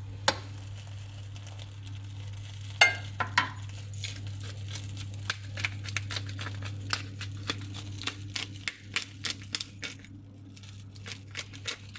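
Spoon and utensil clicks and scrapes while tomato paste is spread over a crunchy pizza base: irregular light taps, thicker in the second half, with a few sharper knocks near the start, over a steady low hum.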